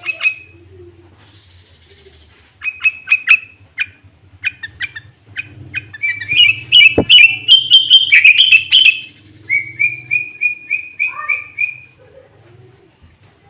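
Sooty-headed bulbul (kutilang) singing loudly: a run of sharp chirps, then a rapid warbling phrase, then a row of quick repeated notes. Its song is filled with imitated greater green leafbird (cucak ijo) phrases.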